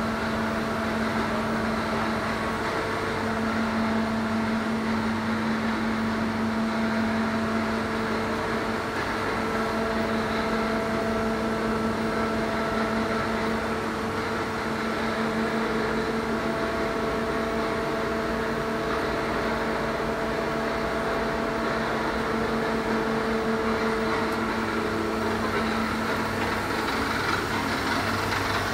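Steady hum of a powered-up CNC vertical bridge mill and its electrical cabinet, machine running with no cutting, carrying a few steady tones that come and go, one higher tone ending about 25 seconds in.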